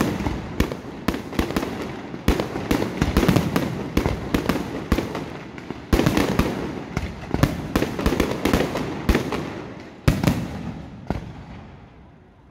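Aerial fireworks display: a dense, irregular run of shell bursts and bangs, each with a short echo, thinning out near the end.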